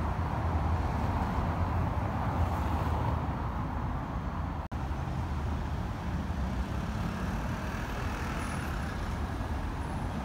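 Road traffic on a city street: a steady low rumble of passing vehicles.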